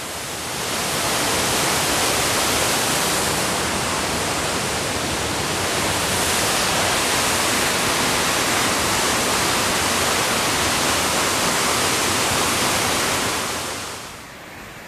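A waterfall about 28 m high, rushing steadily and running full after heavy rain. It fades out near the end.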